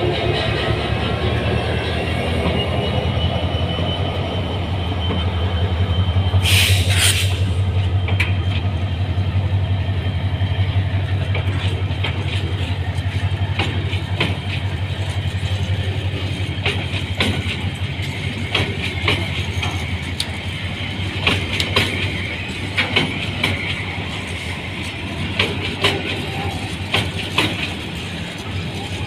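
Diesel-hauled freight train with tank wagons passing close by. Early on the locomotive's engine gives a steady low drone, with a brief loud hiss about seven seconds in. As the wagons roll past, the drone fades and the wheels clack more and more clearly over the rail joints.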